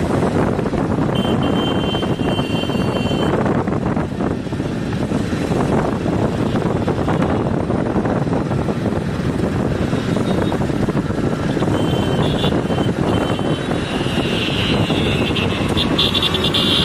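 Steady rush of road traffic and vehicle noise, with wind on the microphone, heard from a vehicle moving along a busy road. A high steady tone sounds for about two seconds a second in, and a run of short high beeps comes near the end.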